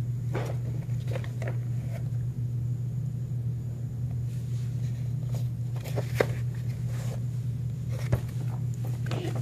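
A steady low hum, with a few brief soft rustles and knocks from a paperback picture book being handled, held up and swung down.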